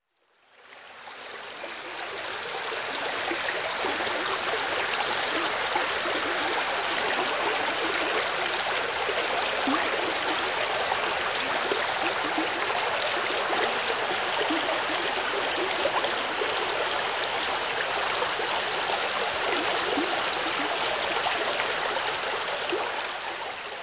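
Stream water flowing over rocks, a steady rushing that fades in over the first two seconds and fades out near the end.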